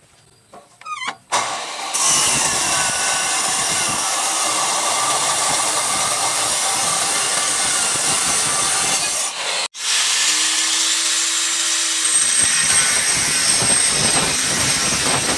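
Makita abrasive cut-off saw spinning up with a rising whine, then its disc cutting steadily through a steel truck leaf spring. After a brief break near the ten-second mark, a handheld angle grinder runs free with a steady hum for about two seconds and then grinds into the steel.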